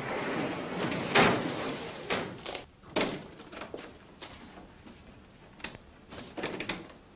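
A room door being opened and shut, with two loud knocks about one and three seconds in, then lighter clicks of the handle and latch near the end.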